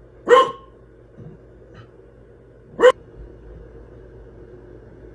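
A dog barking twice, two single loud barks about two and a half seconds apart.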